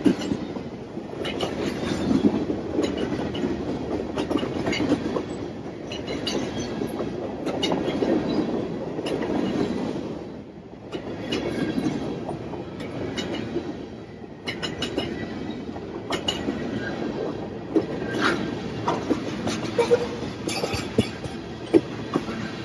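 Freight cars of a long freight train rolling past: a steady rumble of steel wheels on rail that swells and eases every few seconds, with sharp clicks and clacks as wheels pass over rail joints.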